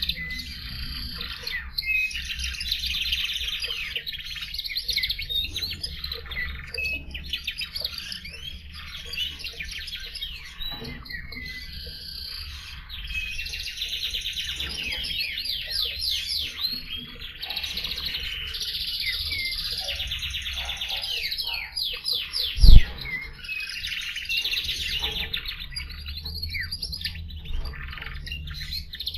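Canary singing a long, almost unbroken song of rapid rolling trills and chirps. A single loud low thump breaks in about three-quarters of the way through.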